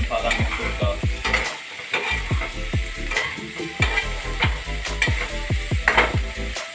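Steel spoon stirring and scraping chopped okra frying in oil and masala in a steel kadai, with sharp metal scrapes every second or so. Background music with a deep, regular bass beat plays underneath.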